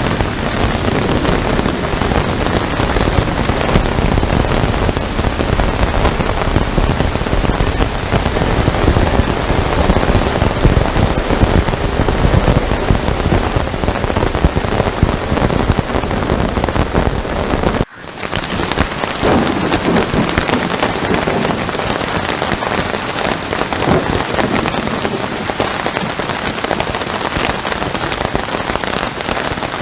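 Heavy rain pouring steadily, a dense even hiss. About two-thirds of the way through it cuts out for an instant and comes straight back, a little lighter in the low end.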